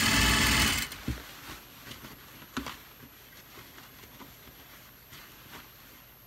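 Juki industrial sewing machine stitching a sleeve seam in one fast burst of about a second, then stopping. A knock and a sharper click follow, with a few faint ticks, as the fabric is shifted at the machine.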